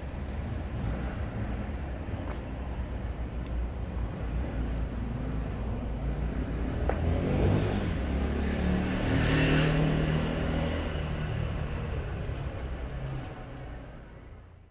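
Street traffic rumbling beside a city sidewalk. A large road vehicle passes with its engine running and a hiss, loudest about eight to ten seconds in. A few short high chirps come near the end, and then the sound fades out.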